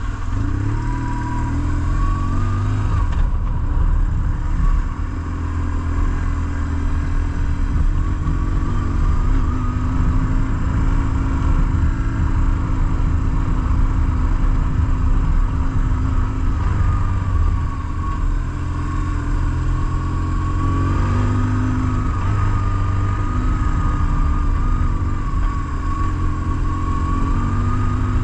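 BMW R1150GS Adventure's air/oil-cooled boxer-twin engine running at road speed, its note rising and falling gently with the throttle, over heavy wind and road noise.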